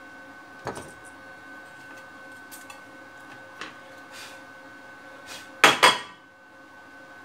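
Tools and a multimeter being handled and set down on a wooden workbench: a few light clicks and knocks, then a louder double knock about six seconds in. A faint steady high tone runs underneath.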